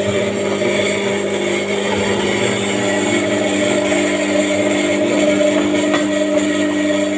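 Electric single-disc rotary floor scrubber running, its motor giving a steady hum as the rotating pad scrubs wet tile.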